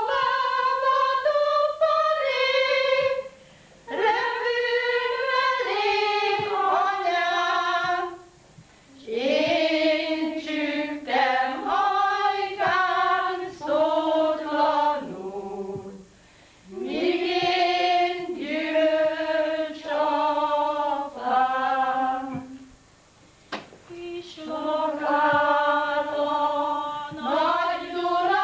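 A small group of women singing together without accompaniment, in phrases of a few seconds with short pauses between them.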